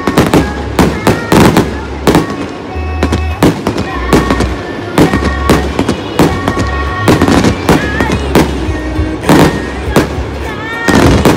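Aerial fireworks bursting in a rapid series of loud bangs, about two or three a second.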